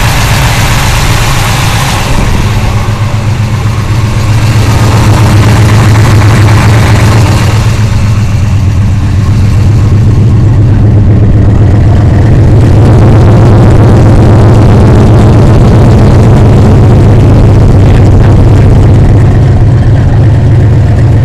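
Chevrolet 454 big-block V8 in a 1970 Chevelle SS running loud and steady at idle, with a deep, even rumble.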